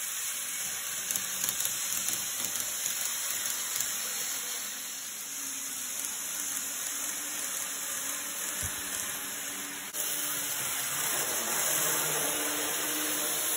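N-gauge model trains running on the layout's track: a steady whirring hiss of motors and wheels, with a faint hum that grows louder over the last few seconds as a train comes close.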